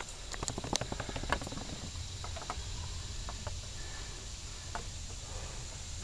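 Scattered light clicks and taps, quick and close together in the first second or so, then sparser, over a faint low rumble and a faint steady high whine.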